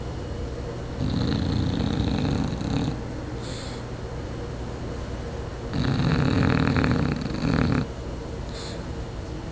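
English bulldog snoring in its sleep: two long, fluttering snores about five seconds apart, each lasting about two seconds, with short, softer breaths between them.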